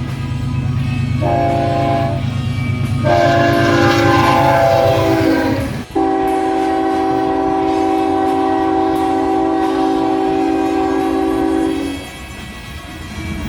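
Multi-chime train air horns sounding chords. First a short blast, then a longer one over the low rumble of a moving train. After an abrupt cut, a different horn holds one long blast of about six seconds, ending about 12 s in.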